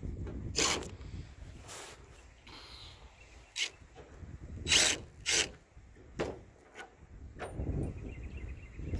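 A series of short knocks and scrapes, about seven in all and irregularly spaced, from bolts and tools being handled on a flatbed trailer's wood-and-steel floor. A low wind rumble on the microphone sits under them at the start and near the end.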